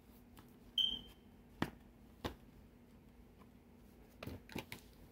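Handling knocks and clicks of an eyeshadow palette being worked into its sleeve: a few scattered taps, the loudest about a second in with a brief high tone beside it, then a quick cluster near the end.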